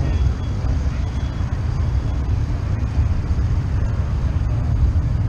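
Low, steady rumble of motorcycle engines running.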